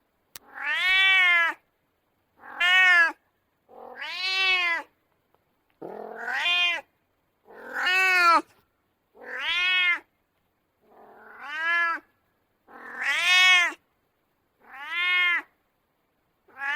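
Domestic cat meowing over and over, about ten separate meows, each rising and falling in pitch, with short gaps between them.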